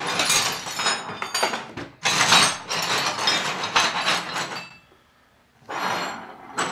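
A pile of old steel files clattering and clinking against each other and the metal bench top as they are tipped out of a box and spread by hand. The clatter stops for about a second near the end, then comes back briefly as the files are picked through.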